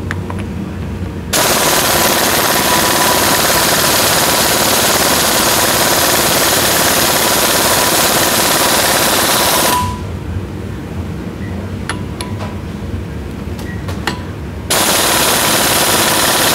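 Pneumatic impact wrench hammering on the lock nut of a mud-motor drive shaft held in a vise, running the nut down tight. One long, loud burst of about eight seconds, a pause of about five seconds, then a second short burst near the end.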